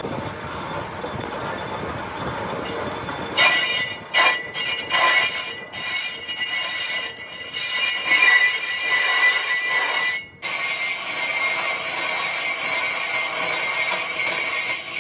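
Lathe machining a cast iron truck brake drum, the cutting tool screeching against the spinning iron: a loud, high squeal with several steady tones that sets in a few seconds in, breaks off for an instant past the middle, and carries on.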